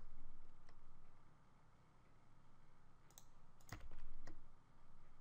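A few scattered clicks of a computer keyboard and mouse, the loudest a little under four seconds in.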